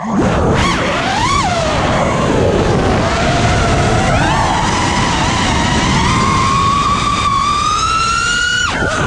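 FPV freestyle quadcopter's motors and propellers whining, the pitch changing with the throttle. The pitch rises sharply and falls back about a second in, then climbs slowly and steadily for several seconds, and drops away sharply near the end.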